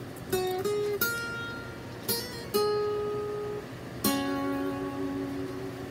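Acoustic guitar played slowly: about six picked notes and chords, each struck and left to ring.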